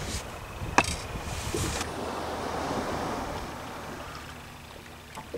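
Wind on the microphone and water lapping against a small boat's hull. The noise swells a couple of seconds in and then fades, and there is one light click just under a second in.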